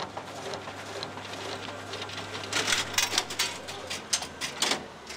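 Océ VarioPrint 4120 production printer running with a steady hum and a soft, even rhythm of sheets feeding through. From about two and a half seconds in comes a run of loud clacks and knocks as the set finisher stitches and pushes out a finished set of sheets.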